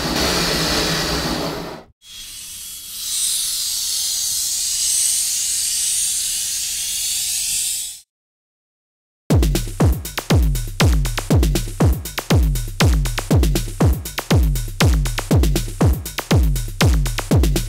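A loud rushing noise with a low rumble, then a steady hiss that swells and cuts off suddenly. After a second of silence, electronic dance music begins, with a heavy kick drum about twice a second.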